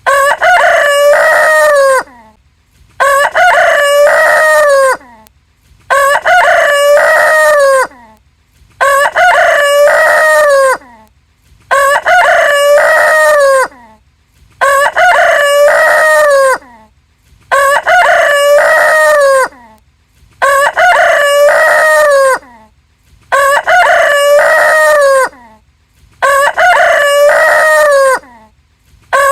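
A rooster crowing, about ten crows, one roughly every three seconds, each about two seconds long and ending in a falling tail. Every crow has the same shape: one recorded crow looped.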